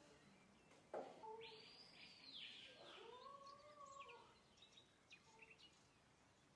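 Faint bird-like chirps and whistled calls that rise and fall in pitch, after a light tap about a second in.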